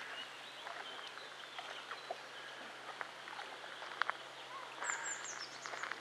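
Outdoor ambience of small birds calling: scattered short chirps, and a quick high trill that falls in pitch about five seconds in, over a steady background hiss.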